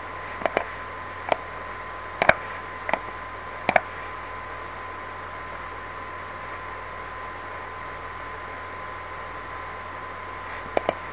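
Computer mouse clicking: a handful of short, scattered clicks in the first four seconds, then two quick clicks near the end. Under them runs a steady microphone hiss with a thin constant whine.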